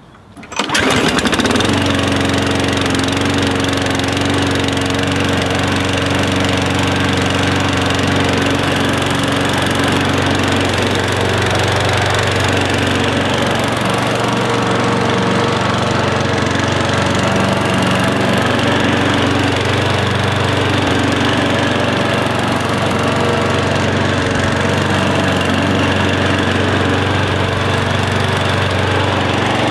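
Lawn mower engine running steadily. It comes in abruptly within the first second and then holds an even drone, used as a sound effect for a propeller aircraft's engine.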